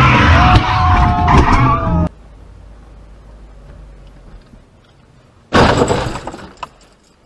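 Car tyres squealing in a skid over loud engine and road noise, cut off abruptly about two seconds in. After a quiet stretch of driving noise, a sudden loud crash of a car collision starts about five and a half seconds in and dies away over a second and a half.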